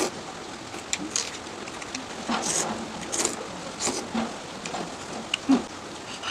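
A person eating noodles: several short, noisy slurps with chewing and small mouth clicks in between.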